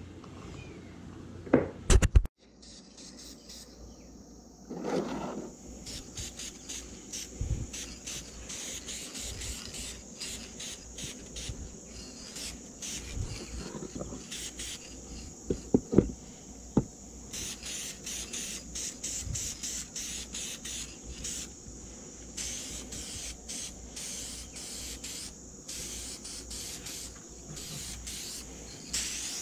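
Aerosol can of spray varnish hissing in short bursts over a wooden toy, with a steady high insect chorus behind it.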